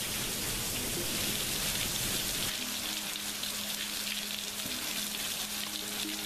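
Heavy rain falling steadily on a yard and wet concrete patio, a dense even hiss. A faint steady low hum comes in underneath about two and a half seconds in.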